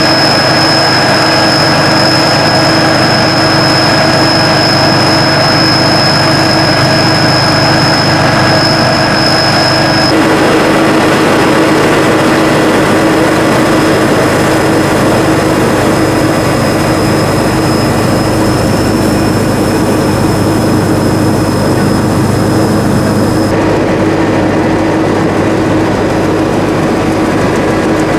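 Sakpattana SS-300 'Black Bird' combine harvester running under load, a steady engine and threshing drone with a high, constant whine. The sound changes abruptly about ten seconds in and again near the end.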